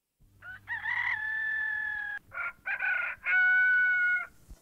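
A rooster crowing twice, each crow a few short notes ending in a long held note; the second crow is a little lower and louder.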